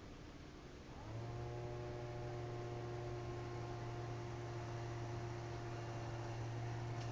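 Litter-Robot automatic litter box's drive motor humming steadily as the globe turns. It starts up about a second in with a brief rise in pitch.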